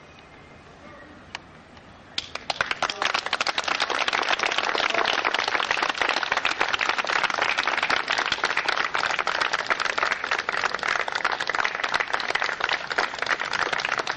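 Audience applause, starting about two seconds in and then holding steady as many hands clap.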